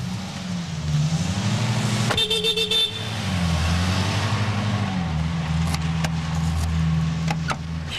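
Car engine running, its pitch rising and falling, with a car horn sounded in a short quick burst of toots about two seconds in. A few sharp clicks follow later.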